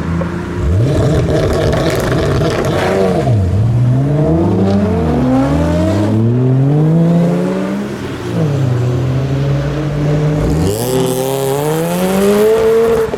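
Modified cars' engines accelerating away, the revs rising and dropping sharply several times as they pull off and change up through the gears.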